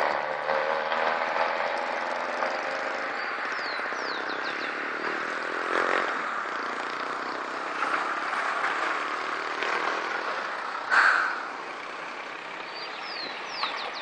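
Steady outdoor vehicle noise, car engines running, with a short louder sound about eleven seconds in and a few quick high chirps.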